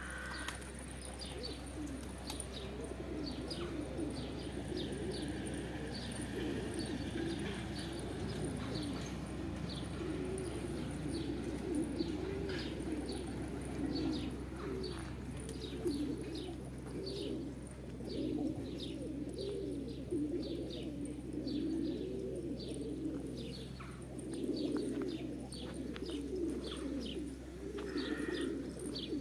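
A flock of domestic Van pigeons cooing continuously in a low, warbling murmur, with many short high chirps over the top.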